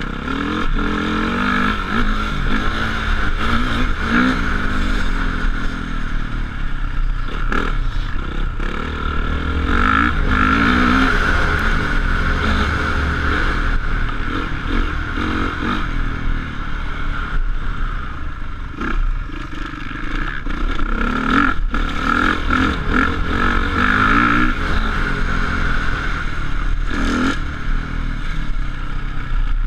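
Motocross motorcycle engine revving hard, its pitch climbing and dropping again and again as the throttle opens and closes and it shifts through the gears, with a few sharp knocks and clatter in between.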